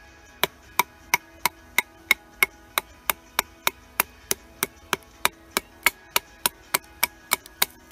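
A wooden baton striking the spine of a steel bushcraft knife again and again, driving the blade down into an upright stick to split it lengthwise. The sharp knocks come at a steady pace of about three a second.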